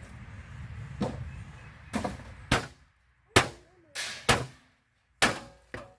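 Irregular sharp metal knocks and clanks, about eight in six seconds, some ringing briefly: a fan motor being broken apart for scrap.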